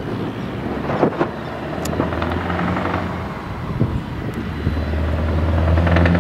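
Scania 164G 580's V8 engine and exhaust running at low speed as the truck approaches, a low drone that grows louder near the end. A few short sharp clicks come through in the first four seconds.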